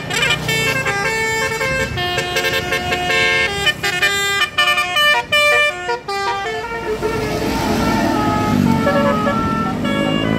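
A bus's telolet horn, a Basuri multi-tone horn, playing a fast tune of short stepped notes for about six and a half seconds. After that it sounds fewer, lower notes over the low running of a vehicle engine that gets louder.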